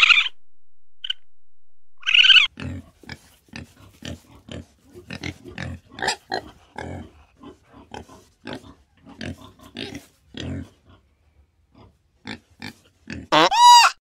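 An animal grunting: a quick run of short, low grunts, about three a second, after two brief higher calls. Near the end comes a short call that rises and falls in pitch.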